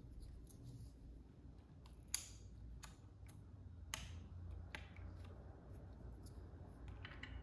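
Scattered light plastic clicks, about five, as keycaps are pressed down onto the numpad's Keychron K Pro Silent Brown switches of a Keychron Q6 mechanical keyboard, over a faint low hum.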